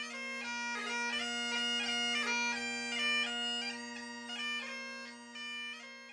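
Great Highland bagpipe playing a tune with grace-noted melody notes over its steady drones, fading out near the end.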